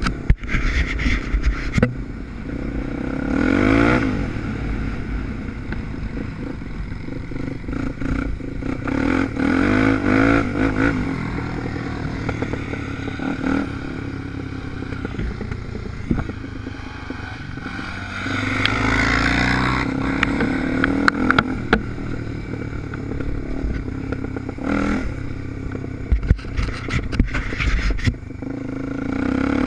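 Off-road motorcycle engine running under load across rough ground, its pitch rising several times as it revs and accelerates, with the clatter and rattle of the bike over bumps.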